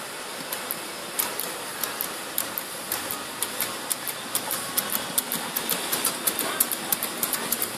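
Homemade drink-can Stirling engine running, its wire crank and linkage clicking in rhythm over a steady hiss. The clicks speed up from about two a second to about five a second as the engine gathers speed.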